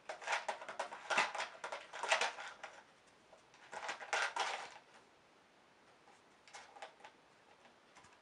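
A cat chewing and pawing at a small object on the floor, making a crackling, clicking rattle in three bursts, the last one fainter.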